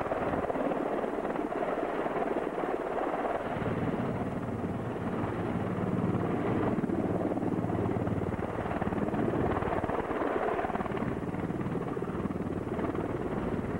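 Sikorsky S-64 Skycrane heavy-lift helicopter holding a hover with a slung load, its rotor and twin turbine engines running steadily. The low rotor sound grows stronger about three seconds in.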